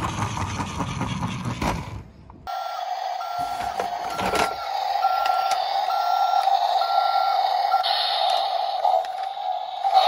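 Battery-powered toy garbage truck's electronic sound effect: a steady electronic drone with a higher beep repeating about every two-thirds of a second, like a reversing alarm. It starts after about two seconds of rushing noise and a short pause, and a knock of the toy being handled comes in partway through.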